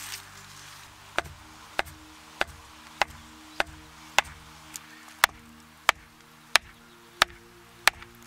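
A wooden stake being driven into the ground with a wooden mallet: about a dozen sharp wood-on-wood knocks, evenly spaced about two-thirds of a second apart, over background music.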